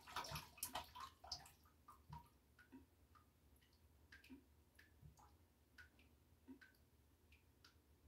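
Faint water in a filled bathtub: a little sloshing in the first second, then single drops falling into the bathwater, one every half second to a second.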